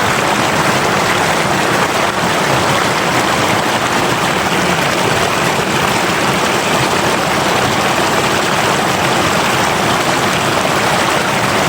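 River water flowing and rushing, a loud, steady, even noise.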